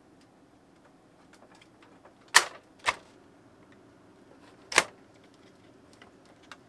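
Sharp clicks and knocks of hard plastic toy parts being handled: three loud ones, two close together about two and a half seconds in and one near five seconds, with light ticking between.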